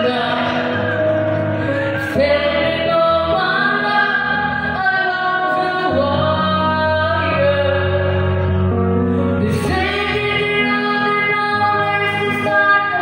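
A woman singing live into a handheld microphone over a recorded backing track played by a DJ, holding long notes that bend in pitch.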